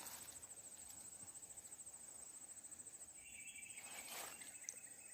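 Faint, steady high-pitched insect trill with a fine rapid pulse, with a short, fainter second call about three seconds in.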